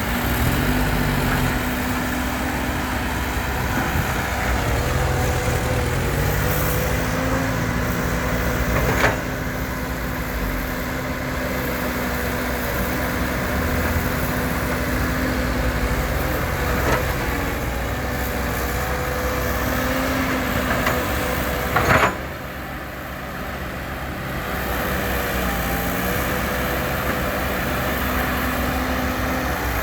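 Heavy diesel engine of earthmoving machinery running steadily under load, its pitch sagging slightly at times, with two sharp metallic knocks, one about a third of the way in and one about three quarters of the way in.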